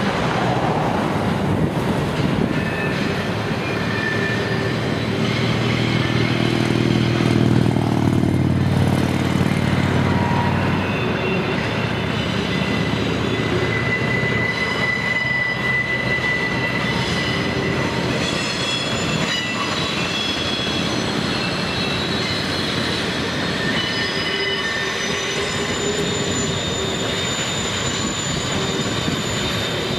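Freight train rolling slowly across a steel truss bridge, its steel wheels giving thin, high-pitched squeals that come and go over a steady rumble. A deeper rumble swells and fades around six to ten seconds in.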